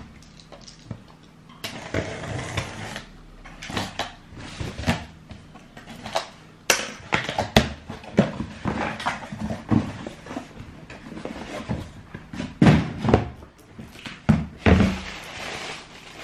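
Handling noise as sneakers are put down and the next pair picked up: irregular knocks, clicks and rustles, with two sharp clicks about seven seconds in and a couple of heavier thumps near the end.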